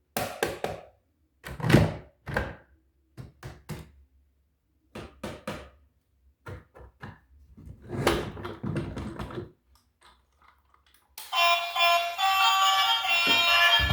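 A series of irregular thunks and knocks as toy vehicles and their packaging are handled, then music starts about eleven seconds in.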